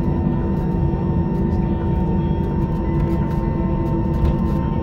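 Steady low rumble and hum of running vehicle machinery, with a constant mid-pitched whine over it and faint light rattles.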